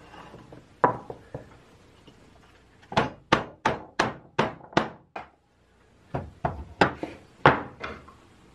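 Sharp wooden knocks, about three a second, in two runs of about seven, with a couple of single knocks before them: a Shelix carbide jointer cutter head being tapped against wooden blocks as it is assembled.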